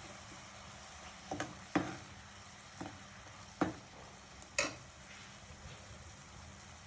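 Ground spice masala with a little water cooking in oil in a pan, with a faint steady sizzle and about five sharp knocks of a spoon against the pan as it is stirred.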